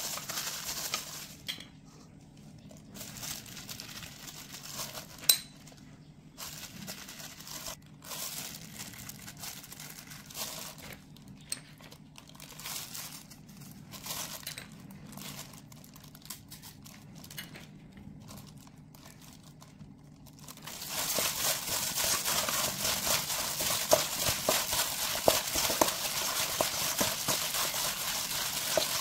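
A plastic food-prep glove crinkling and rustling as a hand handles raw chicken in a stainless steel bowl, with one sharp click about five seconds in. From about twenty seconds in the hand mixes the chicken through its marinade, and the rustling becomes louder and continuous, with small wet crackles.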